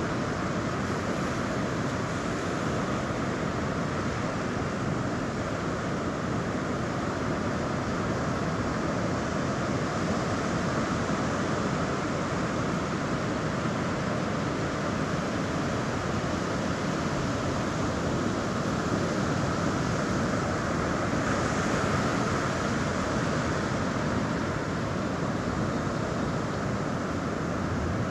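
Sea surf washing onto a beach: a steady rushing with no single breaker standing out, swelling a little about three-quarters of the way through.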